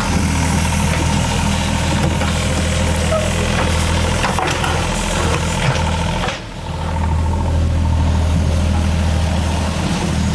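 Excavator's diesel engine running steadily with a low, even drone while digging out stones, dipping briefly a little past halfway.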